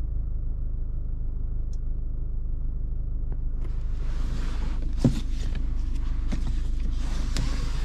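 Mercedes-Benz E220d's four-cylinder diesel running with a steady low rumble. About three and a half seconds in a steady hiss comes in over it, and a sharp knock comes a second and a half later.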